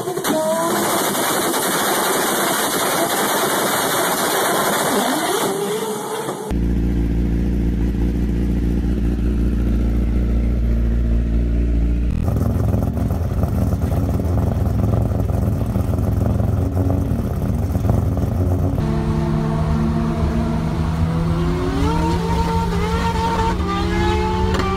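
Fourth-generation Toyota Supra drag car launching and running down the strip with a loud rush of engine noise. The engine of a Kawasaki ZX-10 sportbike, fitted with an extended swingarm and a short can exhaust, then runs steadily at idle. Near the end, a vehicle accelerates hard, its pitch climbing and dropping back several times as it shifts up through the gears.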